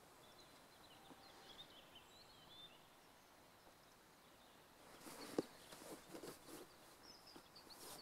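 Near-silent evening lakeside ambience with faint bird chirps, then from about five seconds in a short run of sharp clicks and knocks, one much louder than the rest.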